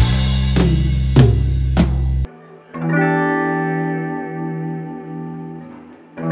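Drums and Fender Jazz bass play together, a low bass note held under three accented drum-and-cymbal hits about half a second apart, then stop abruptly about two seconds in. A moment later an electric guitar chord rings out through effects, held and slowly fading, and a fresh chord is struck right at the end.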